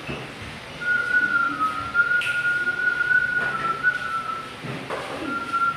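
A person whistling: a thin held note that wavers in small steps of pitch for about four seconds, then starts again about a second later.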